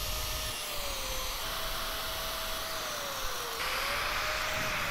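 Power drill boring through aluminum angle and piano hinge. The motor whines steadily with a hiss of cutting, its pitch slowly sagging and then jumping back up, about a second and a half in and again near the end.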